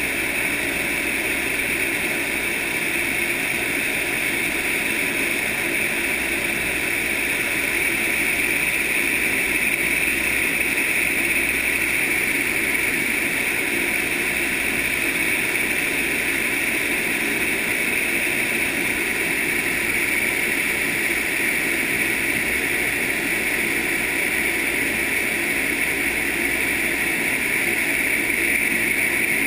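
Open-air vertical wind tunnel's turbine fan running steadily, blowing a constant rush of air up through the net.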